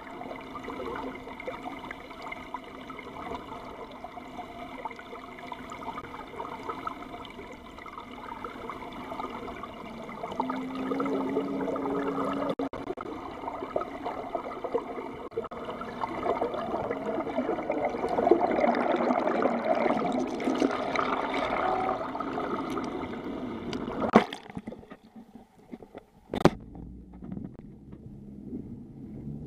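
Underwater rush and bubbling of water heard through a camera's waterproof housing, with a faint steady drone under it. Near the end two sharp knocks as the camera breaks the surface, followed by lighter splashing of waves against the boat's hull.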